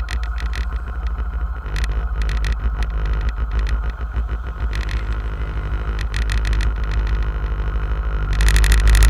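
Motorcycle engines idling with the bikes stopped at the roadside, a steady low rumble. Near the end a heavy tanker truck drives past and the sound grows louder.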